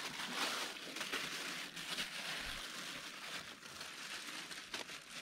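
Thin plastic bag crinkling and rustling as hands dig into it for a handful of groundbait.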